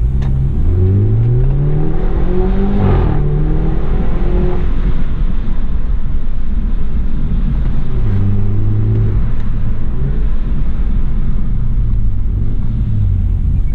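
BMW 320i's B48 turbocharged four-cylinder engine accelerating under load. Its pitch rises for about three seconds, drops suddenly at an upshift, rises again, then settles to a steadier drone.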